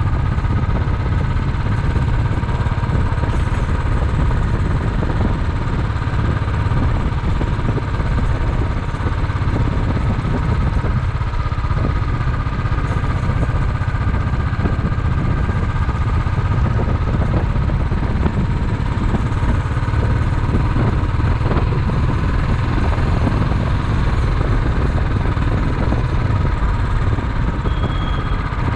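Royal Enfield 500's single-cylinder engine running steadily at low road speed, heard from the bike itself while riding.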